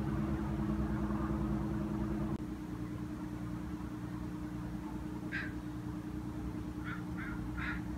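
A steady low mechanical hum that drops a little in level and changes about two seconds in. Several short, high chirps come in the second half.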